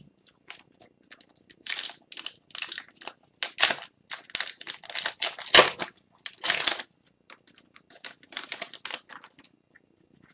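Silver foil wrapper of an Upper Deck Extended Series hockey card pack torn open and crinkled by hand, a run of sharp crackling bursts, followed by softer clicks and rustles of the cards being handled.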